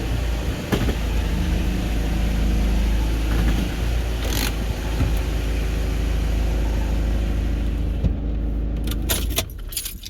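Car engine idling steadily, then switched off about nine seconds in, followed by a few clicks.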